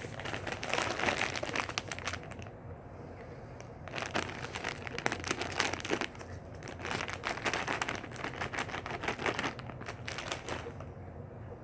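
Candy packaging crinkling and crackling as it is handled, in three spells of a couple of seconds each.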